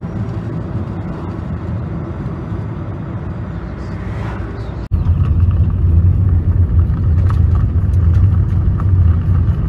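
Road noise of a moving car, heard as a steady rumble. About five seconds in it cuts to a louder, deeper rumble with small knocks and rattles, as the car runs along a rough road.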